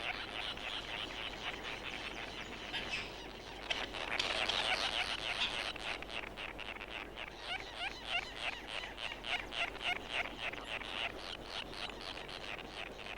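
A tern colony calling: a dense chorus of many short, rapidly repeated chattering calls from nesting birds, thinning out near the end.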